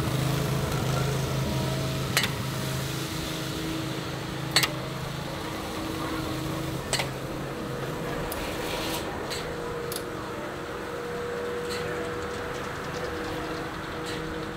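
Belt-driven circular sawmill running: the flat drive belt and the saw turning with a steady mechanical hum, a higher steady whine coming in about ten seconds in. A few sharp knocks, about two seconds apart, as boards are handled on the carriage.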